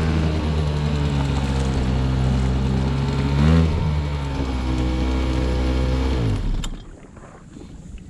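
A small outboard motor on a dinghy runs steadily, revs up briefly about halfway through, then is shut off, its pitch sinking as it winds down and stops about six seconds in. After that only faint water and wind noise remain.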